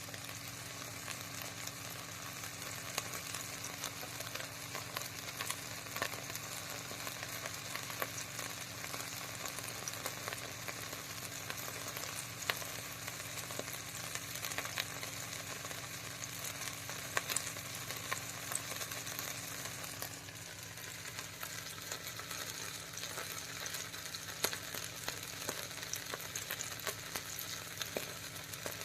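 Butter sizzling in a hot frying pan: a steady frying hiss dotted with sharp crackling pops. The sizzle dips briefly and changes character about twenty seconds in.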